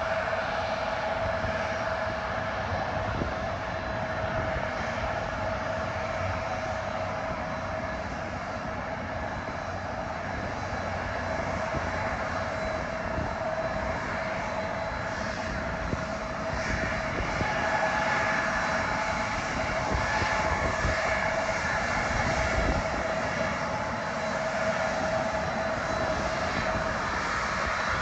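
Airliner engines running: a steady rush with a held whine, swelling slightly a little past halfway.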